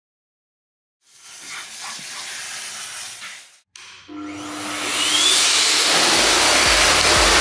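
High-velocity pet blow dryer switched on about four seconds in: its motor spins up with a short rising whine into a loud, steady rush of air. A softer hiss comes before it and stops, and music with a steady beat comes in under the blower near the end.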